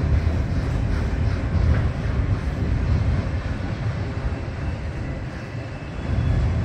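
Loaded autorack freight cars rolling past on the rails: a steady low rumble of steel wheels on track that eases slightly about five seconds in, then builds again near the end.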